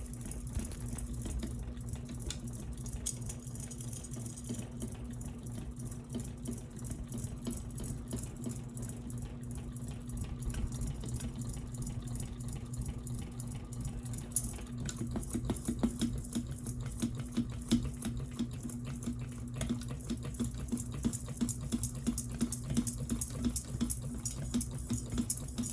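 Ceiling fan motor running with a steady hum and irregular light clicks, the clicks growing busier about halfway through. The fan has a ticking noise whose cause inside the motor is not yet found.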